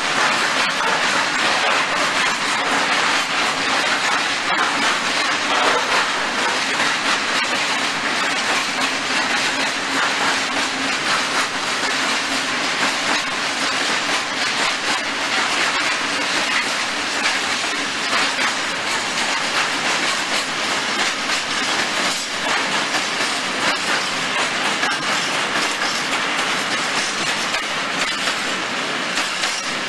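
A freight train of ZACS tank wagons rolling steadily past, with a continuous noise of steel wheels running on the rails and scattered clicks.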